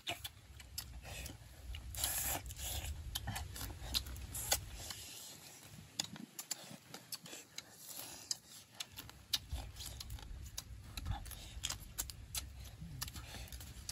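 Crab being eaten by hand: shells cracking and crunching between the teeth, with chewing and sucking, in irregular short clicks and crackles.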